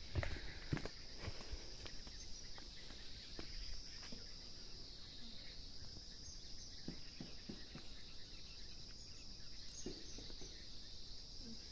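Steady high-pitched insect chorus, an even unbroken drone, with a few faint knocks scattered through it.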